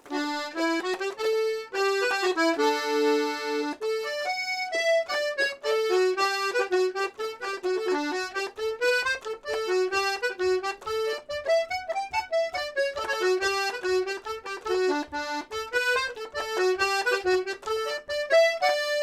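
Paolo Soprani two-row C#/D button accordion with handmade reeds, played: a quick melody of short notes over a steady held tone, with regular bass pulses underneath.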